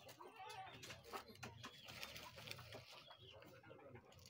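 Faint handling sounds: a plastic bag rustling with small clicks, with faint bird calls and distant voices.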